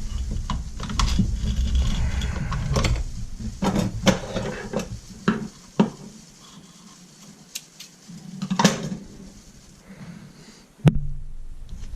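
Irregular clatter of handling work at a leather-stitching bench: a low rumble through the first half, then scattered sharp clicks and knocks, the loudest one near the end.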